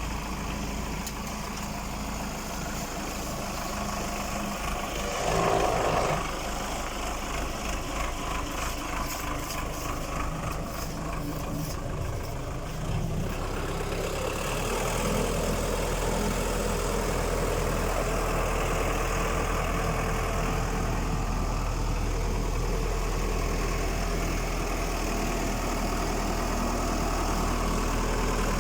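Tractor diesel engine running steadily while powering a PTO-driven concrete mixer. There is a brief louder sound about five seconds in, and about halfway through the engine's note shifts and gets a little louder.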